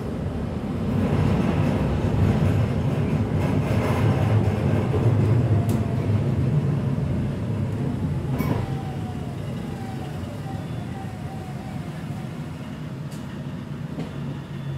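Interior running noise of a Breda VLC tram: a steady rumble of wheels on rails and running gear, easing off in the second half as the tram slows for a stop. Faint falling whines and a few short clicks are heard through the slowdown.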